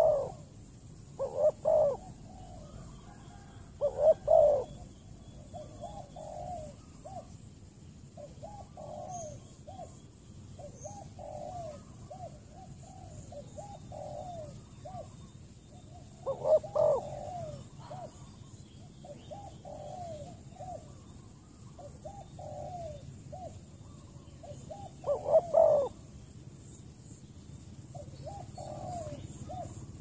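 Spotted doves cooing: soft coo phrases repeat over and over, and five louder, nearer bursts of cooing stand out, three in the first few seconds, one around the middle and one near the end.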